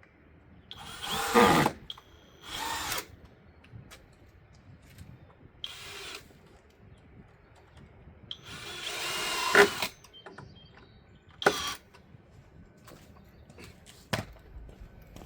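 Power drill driving wood screws down through the top of a wooden frame, in about five separate runs; the longest builds up over about a second before stopping, as a screw seats.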